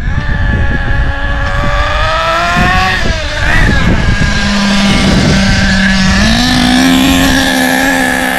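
Thunder Tiger EB4 S2.5 nitro buggy's .28 glow engine running on half-throttle bursts during break-in, set rich. The pitch climbs over the first few seconds, blips up and down about halfway, then holds a steady high whine.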